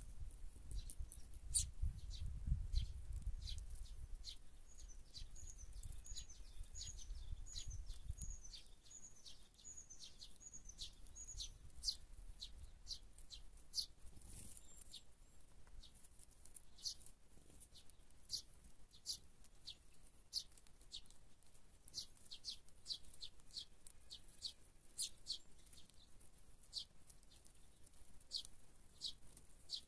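Sparrows chirping: a steady scatter of short, high chirps, with a quick run of repeated high notes for several seconds near the start. A low rumble underlies the first several seconds.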